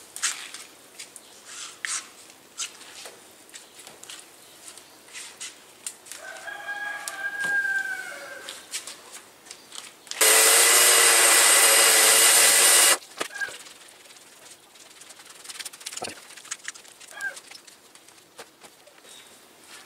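Roosters crowing: a fainter crow with a bending pitch about six seconds in, then a very loud, harsh crow around ten seconds in that lasts nearly three seconds and cuts off sharply.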